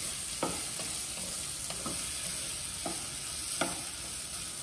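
Peeled beans frying in olive oil in a pan, sizzling steadily, while a wooden spatula stirs them and knocks lightly against the pan several times.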